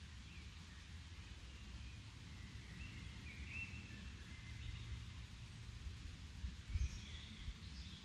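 Faint lakeside ambience: birds chirping in short phrases over a steady low rumble and a soft hiss. A brief low thump comes near the end.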